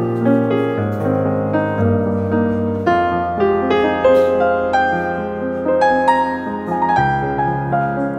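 Background piano music: a melody of single notes over bass notes that change every second or so.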